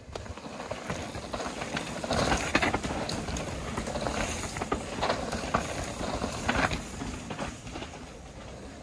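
Mountain bikes riding past one after another on a dirt trail, their tyres rolling and scrabbling over soil and leaf litter and the bikes rattling. It is loudest as each rider passes close, a couple of seconds in and again around the middle.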